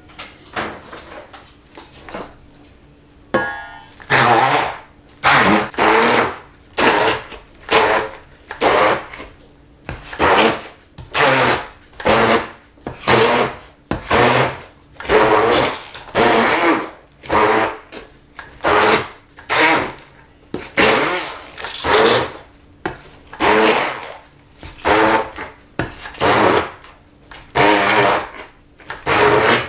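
Immersion blender run in short pulses, about one a second, starting a little over three seconds in. It is chopping diced peppers, onions, garlic and olives in a stainless steel bowl.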